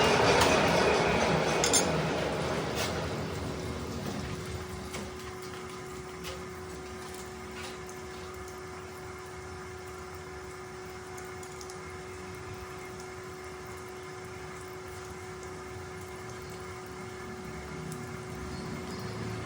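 Manual metal lathe running: a loud cutting noise fades away over the first few seconds, leaving the machine humming steadily with a constant whine and a few light clicks.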